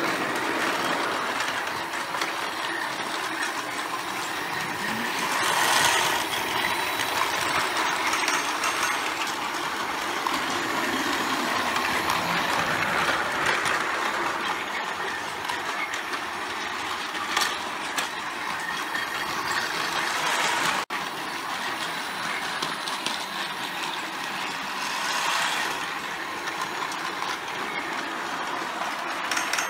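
Battery-powered toy trains running on plastic Plarail track: a steady whir of small electric motors and gears with the wheels running over the track. It swells three times as a train passes close.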